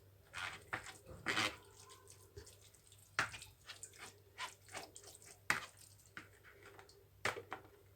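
Water dripping and splashing into a pot in a series of irregular, separate drops and small splashes.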